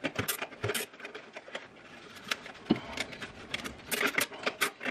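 Heavy-duty 24-inch zip tie being cinched tight, its teeth clicking through the lock in quick, uneven runs of clicks, with a dense run about four seconds in.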